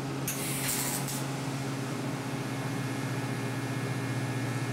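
TIG welder humming steadily as the arc burns on a socket joint, with a brief high-pitched hiss about a third of a second in, lasting under a second, as the arc is struck.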